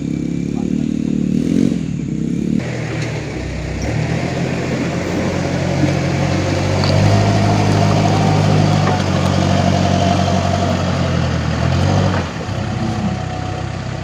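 A Hino light truck's diesel engine revving while the truck is stuck in deep mud. Then a Case 580 backhoe loader's diesel engine runs hard under load for several seconds and drops off suddenly about twelve seconds in.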